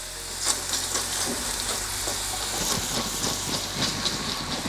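Smash burger patties sizzling and crackling on a Blackstone E-Series electric griddle at 400°F, as a plastic scraper works under a patty to flip it. The sizzle is a steady hiss dotted with many small crackles, and it grows slightly about a second in.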